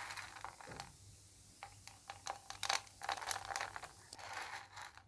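Hard, fully dried candied raw-papaya cubes (homemade tutti frutti) clinking and rattling against each other and the tray as they are lifted off it, in quick irregular clicks that grow busier about halfway through. The hard rattle is the sign that the cubes are properly dried.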